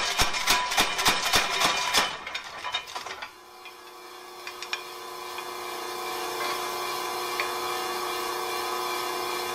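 Home-built power hammer striking angle iron over a fuller in rapid, even blows, about five a second, forging a curve into the bar. The blows die away two to three seconds in, and the hammer's motor keeps running with a steady hum.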